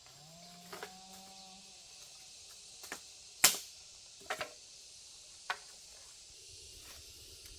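A handful of sharp knocks or cracks at uneven intervals, six or so, the loudest about three and a half seconds in. During the first two seconds a low held tone with overtones rises and then levels off.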